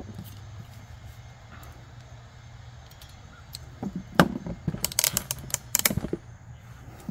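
Crimping tool squeezed onto a wire's crimp connector: a quick run of sharp clicks and snaps for about two seconds in the second half, over a steady low hum.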